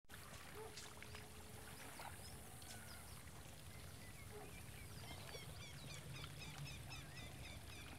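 Faint outdoor ambience: birds chirping in short repeated calls, busier in the second half, over a steady low background hum.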